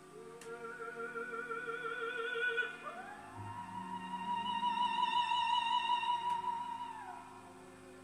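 Recorded classical music played through Tannoy Cheviot loudspeakers: a melody line with wide vibrato holds one note, glides up a little before three seconds in, and holds a long higher note until about seven seconds in, over a quiet lower accompaniment.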